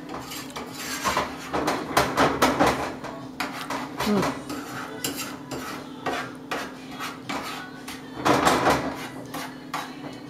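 Metal spoon scraping and clinking against a frying pan as a red wine sauce is stirred, in quick repeated strokes that come in louder clusters about two seconds in and again near the end. A steady low hum runs underneath.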